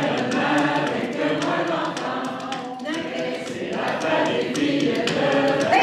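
A roomful of voices singing a French-Canadian chanson à répondre, a call-and-response folk song, together, with a steady beat of sharp taps, about three a second.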